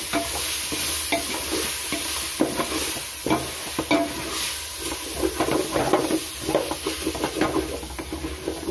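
Wooden spatula stirring and scraping through a thick masala in a metal pot, in repeated strokes, over the sizzle of frying oil. Fresh coriander and mint leaves are being sautéed into the onion-tomato masala.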